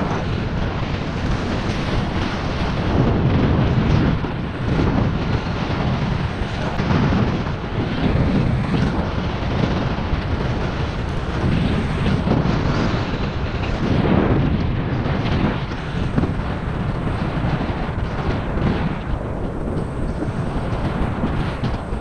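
Wind buffeting the microphone of a helmet-mounted camera as the rider moves at speed on a Xiaomi Mijia Pro electric scooter: a loud, gusty low rumble that swells and eases every second or two.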